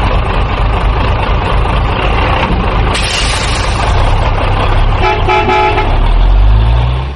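Heavy truck engine running with a dense rumble, a horn honk about five seconds in, and the engine revving up near the end.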